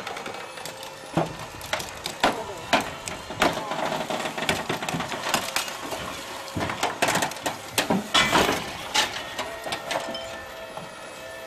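Overturned Ford Bronco's metal body crunching, scraping and knocking against the slickrock as it rolls from its roof onto its side, with many sharp knocks and cracks, over the voices of onlookers.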